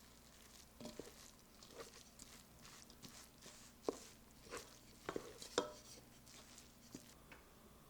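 Kitchen knife chopping on a cutting board in scattered, irregular strokes, the loudest a little past the middle.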